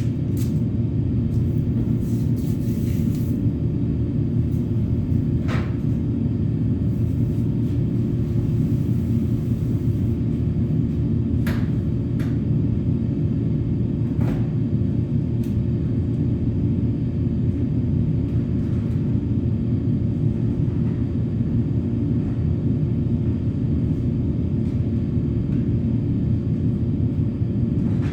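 A motor running with a steady low drone, with a few faint clicks and taps.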